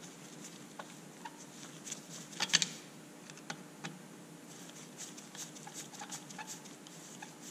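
Small clicks and taps of a screwdriver and small metal parts as the carburetor and throttle linkage are refitted to a chainsaw, with a quick cluster of louder clicks about two and a half seconds in.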